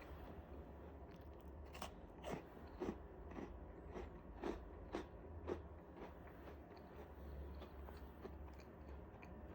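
Faint crunching chews, about two a second for a few seconds, then fainter and sparser: a dog chewing on something hard.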